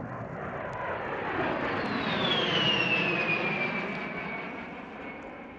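A-10 Thunderbolt II's two TF34 turbofan engines as the jet flies past: a rushing noise that swells to a peak about halfway through and then fades, with a high whine that falls steadily in pitch as it goes by.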